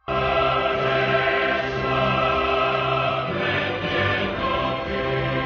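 Background choral music: a choir singing held chords, starting abruptly out of silence.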